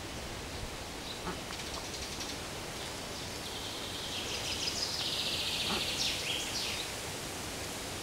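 A bird calling in a fast, high-pitched trill for about three seconds from around the middle, with a few short chirps before it, over a steady background hiss.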